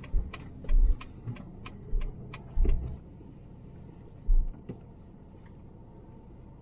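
Inside a slow-moving car, the turn-signal indicator ticks about three times a second and stops about three seconds in. Under it runs the car's low rumble, with several heavy thumps as the car rolls over bumps.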